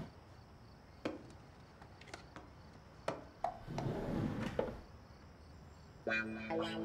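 Rummaging in a desk drawer: a few separate soft knocks and clatters as books and objects are shifted and a small device is lifted out. Plucked guitar music comes in near the end.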